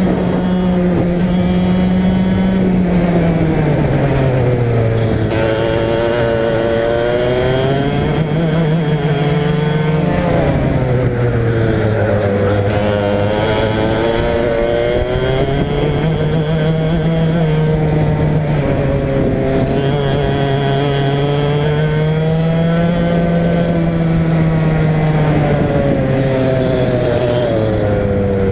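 Go-kart engine at racing speed, heard from on board the kart: the revs climb and drop several times, high at first, falling a few seconds in, then rising and falling again through the lap.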